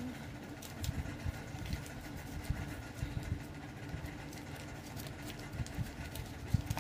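Paper banknotes being handled and folded by hand, with light crinkles and taps every second or so, over a steady low machine hum.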